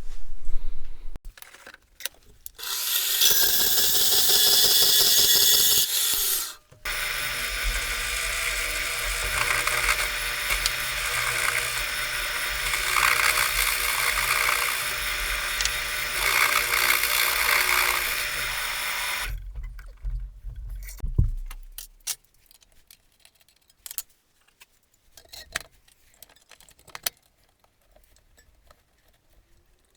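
Woodworking power tool cutting a steel blade blank, its motor running steadily and then spinning down about twenty seconds in. Scattered clicks and taps follow.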